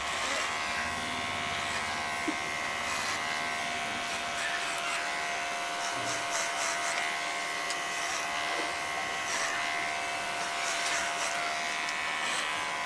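Cordless electric hair clipper running with a steady buzz, cutting hair held up on a comb (clipper-over-comb), with brief scattered rustles as the blades pass through the hair.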